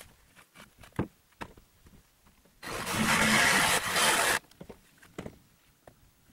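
A power saw runs in one burst of about a second and a half, starting and stopping sharply near the middle, amid scattered knocks and clatter of salvaged lumber.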